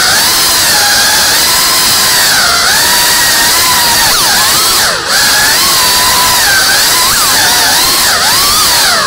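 FPV quadcopter's brushless motors and propellers whining, the pitch swooping up and down continually as the throttle changes. About five seconds in, the pitch and level dip sharply for a moment, then climb back.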